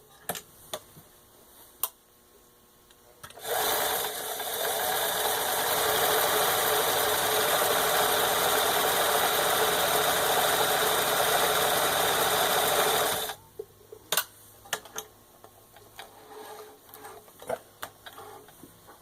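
Necchi 535FA zigzag embroidery sewing machine running steadily for about ten seconds, stitching its built-in icicle pattern. A few sharp clicks come before it starts and after it stops.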